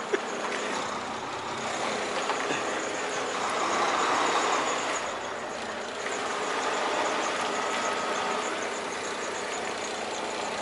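Semi truck's diesel engine running as the day-cab tractor creeps through a yard at low speed, heard from inside the cab. It swells louder about four seconds in and again around seven seconds, as the engine takes on more throttle.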